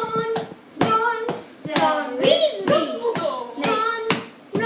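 Children singing a chant while hand claps or slaps keep a rough beat, about two to three strikes a second.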